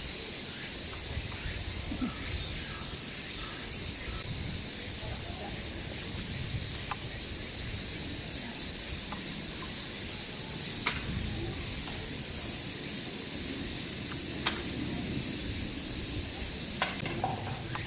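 Steady high-pitched buzzing of a cicada chorus, with a few short sharp knocks heard over it.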